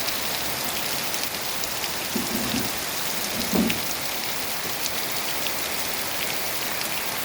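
Heavy rain falling steadily, with individual drops ticking. Two brief low sounds stand out about two and three and a half seconds in, the second louder.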